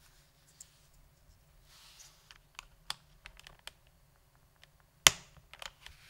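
Scattered, irregular keystrokes on a stock, unlubed HHKB Pro 2 with Topre switches: a dozen or so light clicks between two and four seconds in, then one sharp, much louder key strike about five seconds in, followed by a few more.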